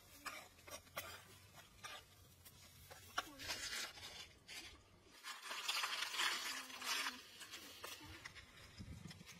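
Pond snail shells knocking and rattling as they are handled and dropped into a pan over a wood fire. Scattered clicks, then a denser crunchy rattle of about a second and a half, about six seconds in.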